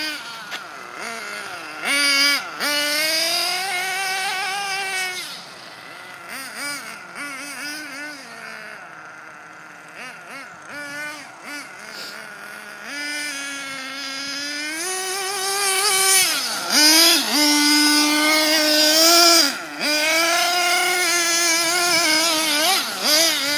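Small nitro engines of radio-controlled racing cars revving up and easing off over and over as they drive, their whine rising and falling in pitch. They are loudest and highest in the second half, with sharp drops in pitch as the throttle is let off.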